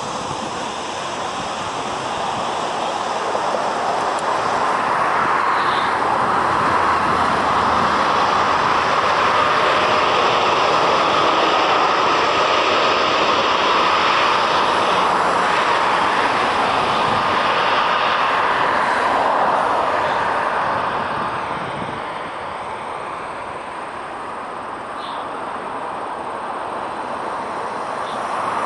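Air Canada Boeing 787's twin GEnx turbofans spooling up to takeoff thrust during the takeoff roll. The jet noise builds over the first few seconds, stays loud and steady, then fades after about twenty seconds as the aircraft pulls away down the runway.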